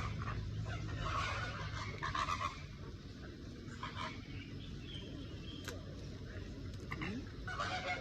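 Birds honking, with the loudest calls right at the end.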